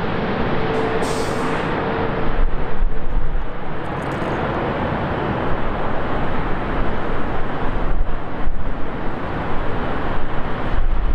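Jet engine noise from a Boeing 777-300ER's GE90 turbofans as the airliner flies low over the runway just before touchdown: a loud, steady rush, with a faint whining tone that fades about a second in.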